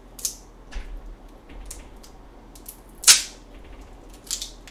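Plastic cap of a bottle of mirin being twisted open by hand: a few small clicks, and one louder sharp click about three seconds in.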